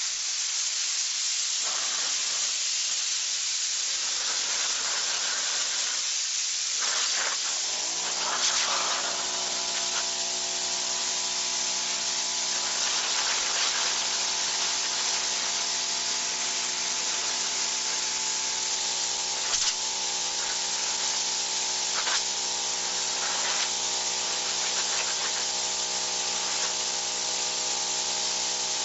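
Steady hiss of air blowing out in a stream, joined about eight seconds in by a steady machine hum with several fixed tones, with a few faint clicks.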